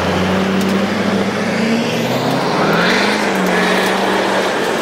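Chevrolet Silverado pickup's engine accelerating as the truck pulls away hard on a gravel road, with its tyres throwing gravel. The engine pitch rises about two to three seconds in.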